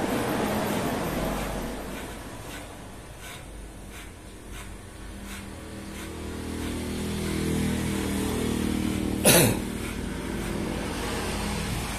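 Electric hair clippers buzzing steadily as they cut hair over a comb. A motor vehicle passes by outside, swelling and falling in pitch over the second half, with one sharp, loud burst of noise about nine seconds in.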